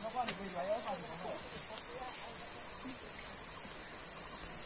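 Steady high-pitched buzzing of insects (crickets or cicadas) that swells rhythmically about every second and a bit, with faint distant voices in the first second.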